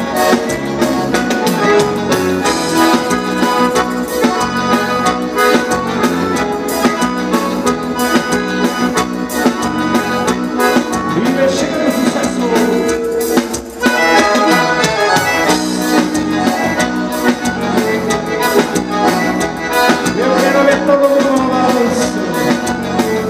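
Live vanera dance music led by an accordion, an instrumental passage between sung verses, with a short break in the music about halfway through.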